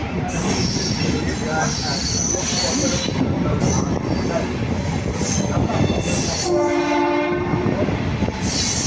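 Train running on the rails with a steady rumble and intermittent high squeals from the wheels. A train horn sounds once for about a second, near the end.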